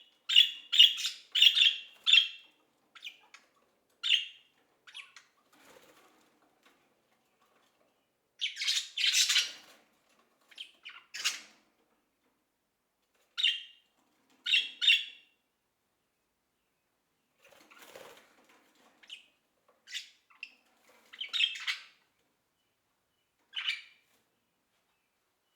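A bird giving short, harsh squawking calls: a quick run of about five in the first two seconds, a longer rasping call about nine seconds in, then single calls every second or two with gaps between.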